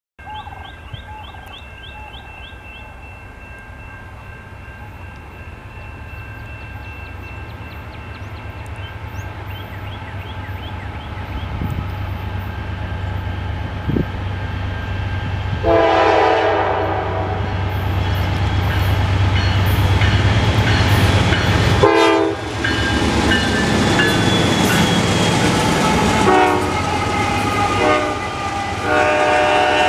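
Eastbound freight train led by three GE diesel locomotives, two Dash 9-44CWs and an ET44AC, approaching and passing. The engines' low rumble grows steadily louder. The lead locomotive's air horn sounds a long blast about halfway through, a short one a few seconds later, and more blasts near the end, while wheel and rail noise swells as the locomotives go by.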